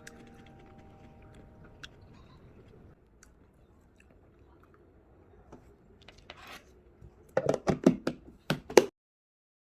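Close-up crunching of crisp food being bitten and chewed: a quick run of about eight loud crunches near the end, which stop suddenly. Music fades out at the start.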